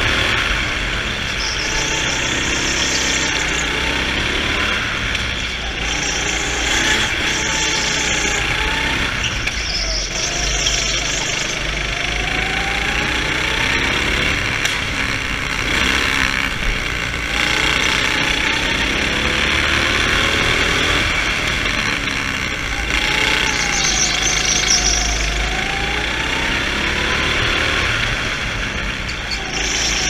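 Go-kart engine revving up and down repeatedly as the kart accelerates out of corners and lifts off into them, with several brief high hissing bursts over it.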